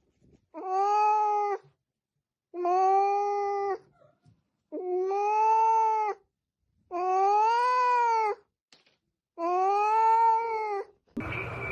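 A cat yowling: five long drawn-out calls, each a second or more, rising slightly and falling back, with short silent pauses between them.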